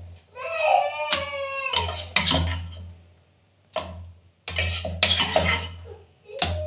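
A small child whimpers in a high, wavering voice for about a second and a half. Then dishes and a spoon clink several times.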